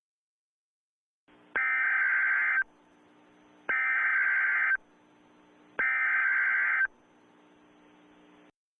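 Emergency Alert System SAME header: three identical bursts of screeching digital data, each about a second long and about two seconds apart, over a faint low hum. It is the coded header that opens a weather radio alert, here a tornado warning.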